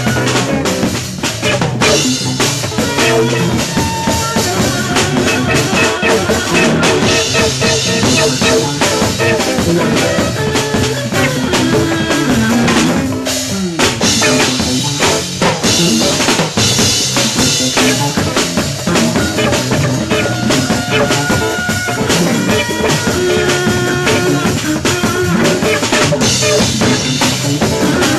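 Live recording of a large jazz ensemble playing a dense passage, with busy trap drums and cymbals under held notes from the other instruments, heard from a cassette dub of the master reel.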